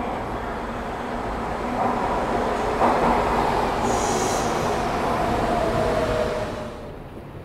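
Los Angeles Metro Red Line subway train pulling into an underground station. The rumble builds and peaks about three seconds in, with a brief high squeal from the wheels about four seconds in. A whine then falls slowly in pitch as the train slows, and the sound fades near the end.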